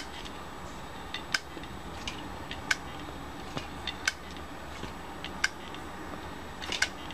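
Failed hard disk drive clicking: a sharp click about every second and a half, with fainter ticks in between. The read/write heads are stuck and the drive will not spin up, the sign of a dead drive.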